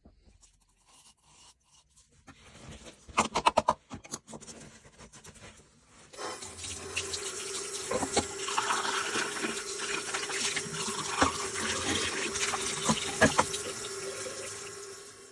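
Water running steadily from a tap, with a faint steady whine, starting about six seconds in and cutting off abruptly near the end. A few sharp clicks come before it.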